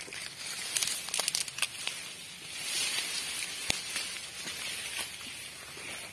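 Tall grass and weeds rustling and crackling as someone walks through them, the blades swishing against the legs: a run of crackles about a second in, then a steadier swishing.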